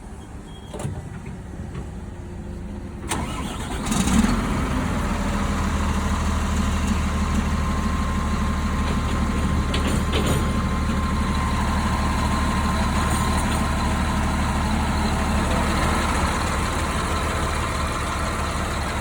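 Diesel truck engine starting about three to four seconds in, then idling steadily. This is the engine's first run after a turbocharger replacement.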